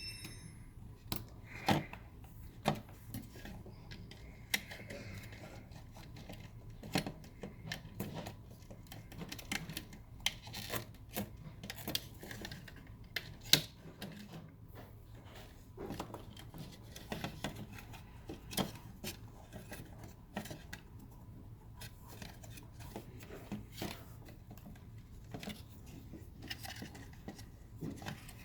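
Irregular light clicks and taps of plastic parts and a circuit board being handled and fitted together as a Mazda RX8 A/C control unit is reassembled, with a few sharper clicks.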